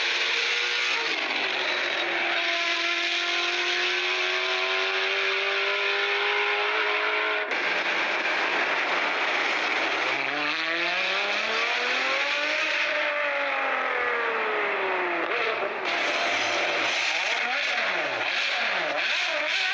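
A motor vehicle engine revving over a steady hiss. Its pitch climbs slowly and falls back about ten seconds in, then swings quickly up and down several times near the end.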